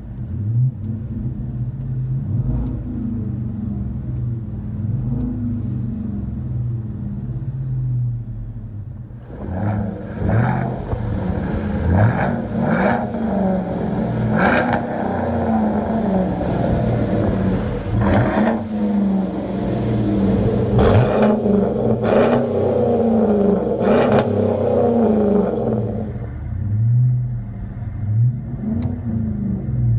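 Chevrolet/GMC 1500 pickup engine through a true dual performance exhaust, idling with short blips of the throttle. From about a third of the way in it is revved repeatedly and harder, then settles back toward idle near the end.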